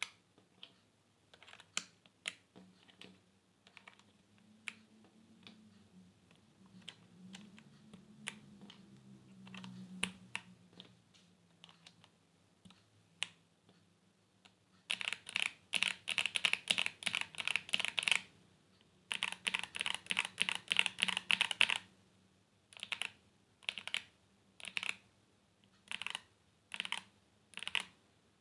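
Typing on a Royal Kludge RK68 mechanical keyboard with tactile switches, a steel plate, a foam-damped, tape-modded plastic case and Cherry-profile keycaps. Scattered single keystrokes give way to two quick runs of fast typing about halfway through. These are followed by separate key presses about once a second.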